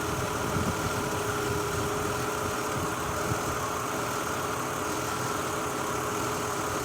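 A 2003 Mazda Tribute's six-cylinder engine idles roughly and unevenly with a misfire. The misfire is from ignition coils arcing where oil leaks past the valve covers, and pulling this coil makes no change to the idle.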